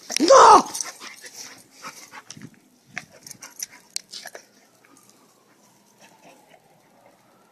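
English bull terrier snuffling and sniffing close to the microphone as it noses through grass, in short scattered bursts that die away after a few seconds.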